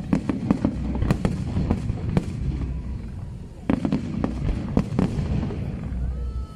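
Fireworks display: rapid cracks and bangs of bursting shells over a low rumble, coming in two volleys with a short lull between them.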